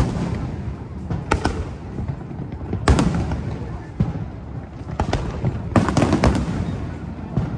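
Aerial fireworks bursting overhead: sharp bangs every second or two, each trailing off in a rolling echo over a steady low rumble, with a quick run of three bangs a little past the middle.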